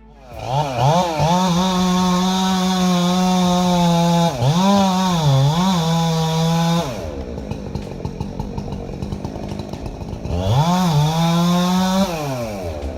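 Petrol chainsaw revved up to full throttle and held high, its pitch dipping twice in the middle. About seven seconds in it drops back to idle, then it is revved again briefly and falls back to idle near the end.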